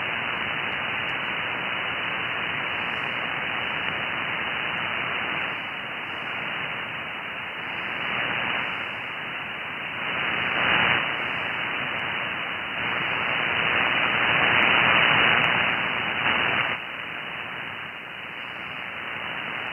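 Icom IC-7610 transceiver's receiver hiss on 20 meters in upper sideband, with the band noise cut off sharply at about 3 kHz by the radio's filter. The operator is listening after a CQ call and no station answers. The hiss swells and fades in strength, is loudest a little past the middle and drops suddenly near the end.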